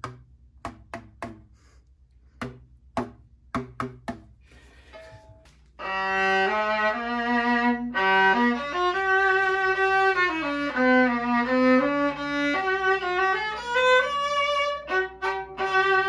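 A few light taps on the magnet-weighted drum-skin panels of the Tabolin, an experimental violin. About six seconds in, a fiddle tune starts, bowed on the instrument with changing notes and frequent double stops.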